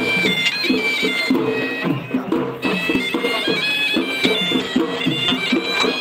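Loud reedy melody from a horanewa, the Sri Lankan double-reed shawm of procession music, playing short held notes that step up and down.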